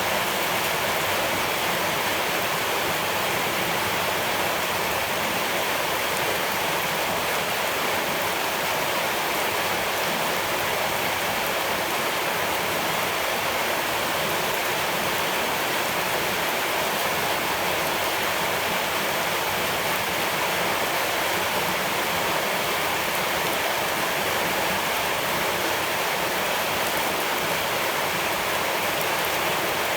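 Steady rushing of flowing water, an even, unbroken wash of noise with no change in level.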